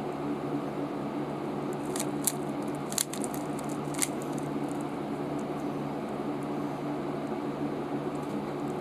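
Steady low electrical hum, with a few sharp plastic clicks about two to four seconds in, as of a Rubik's cube being turned.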